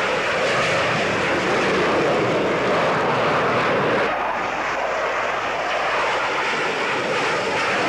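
Jet engine noise of two Sukhoi Su-27 fighters taking off, their twin Lyulka AL-31F turbofans at high power. It is a loud, steady rushing noise that changes abruptly in tone about four seconds in, losing its highest part.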